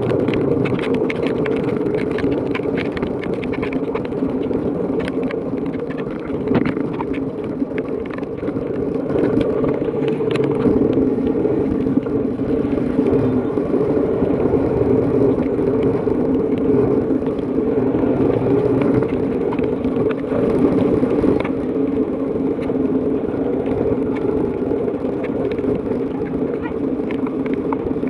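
Motorcycle engine running steadily while riding, with tyre hiss on a wet road and rain pattering on the microphone.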